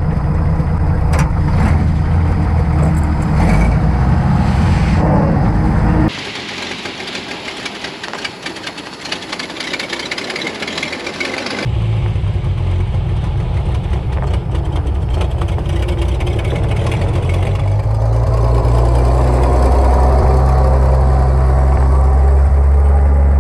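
Replacement engine in a Chevrolet G-506 army truck running just after starting. About six seconds in it gives way abruptly to a hissy stretch without the engine's low note, and the engine comes back about twelve seconds in, louder from about eighteen seconds on.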